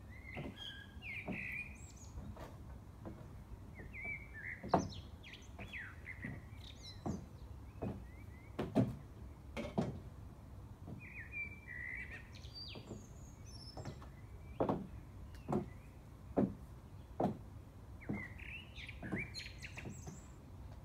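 Stiletto heels knocking on wooden decking in uneven, spaced-out steps, the sharpest knock about five seconds in. Small birds chirp in short bursts four times over the steps.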